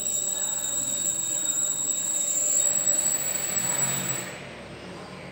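DJI F450 quadcopter's four brushless motors spinning their propellers after arming: a steady high whine over rushing air. It drops away about four seconds in as the throttle comes down.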